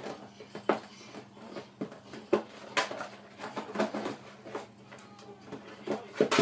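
Empty plastic milk bottle clacking and crinkling as a small dog bites, paws and shoves it across a carpet: irregular hollow knocks and crackles, a few sharper ones.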